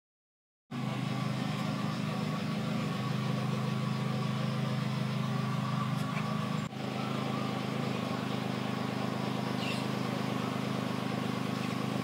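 Perodua Kancil's small engine idling steadily, heard from behind the car, with a brief dip about seven seconds in.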